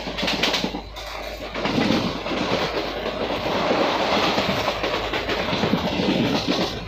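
Intercity express passenger coach running along the track: steel wheels clattering on the rails over a continuous rumble.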